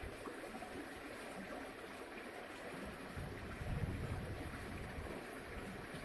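Outdoor ambience with a steady airy hiss; from about halfway through, wind starts buffeting the microphone in low rumbling gusts, strongest a little before the end.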